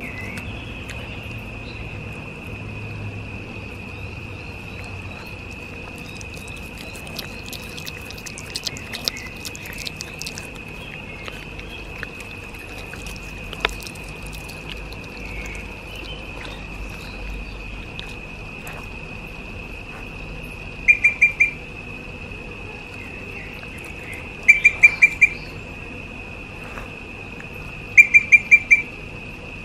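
A steady, high-pitched insect drone, with scattered faint clicks in the first half. Three short bursts of rapid chirps in the second half stand out as the loudest sounds.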